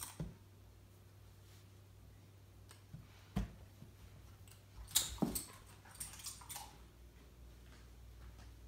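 German Shepherd puppy moving about: faint scattered clicks, a thump about three and a half seconds in, and a brief louder clatter about five seconds in.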